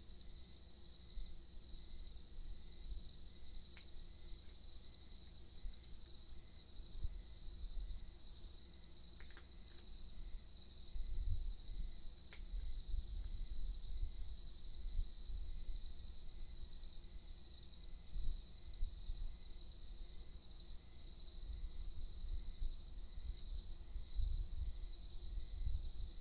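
Steady chorus of night insects trilling, a continuous high-pitched sound, over a low uneven rumble.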